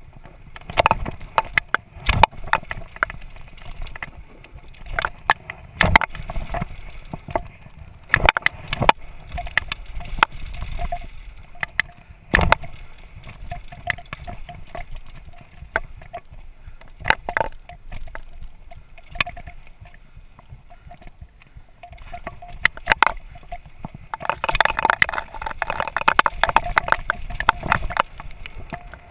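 Downhill mountain bike ridden fast over rough dirt trail and wooden boardwalk: irregular clatter and knocks from the chain, suspension and tyres as they hit bumps, over wind noise on the microphone. A dense burst of rattling comes near the end over rough ground.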